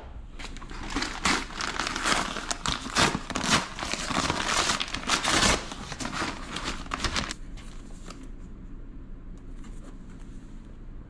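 Brown kraft-paper Amazon mailer being torn open and crinkled by hand: a fast run of paper rustling and ripping that stops about seven seconds in.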